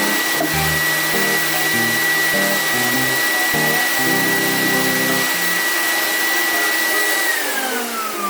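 Pet vacuum cleaner running with a steady high whine over its motor noise. It is switched off about seven seconds in, and the whine falls in pitch as the motor spins down. Background music plays throughout.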